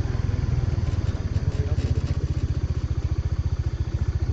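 Motorbike engine running at a steady cruising speed while being ridden, an even, rapid low throb.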